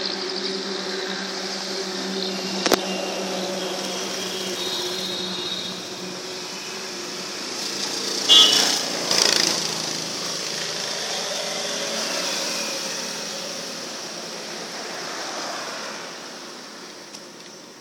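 A motor vehicle engine running steadily and fading away after about five seconds. There is a sharp click a few seconds in, and a brief louder, higher sound about eight seconds in.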